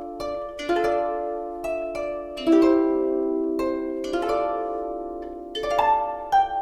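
Background music of plucked string notes, each struck sharply and left to ring and fade, following one another in a slow melody.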